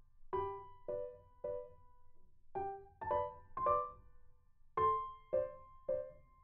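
Background piano music: slow, gentle notes and chords struck in groups of three, each group followed by a short pause.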